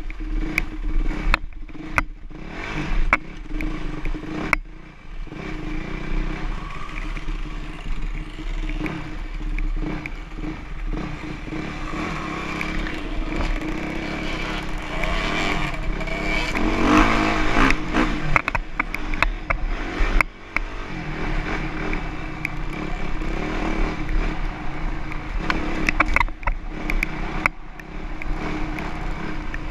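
Motocross dirt bike engine running while riding, its revs rising and falling and loudest about halfway through, with sharp clicks and knocks scattered over it, thickest at the start and near the end.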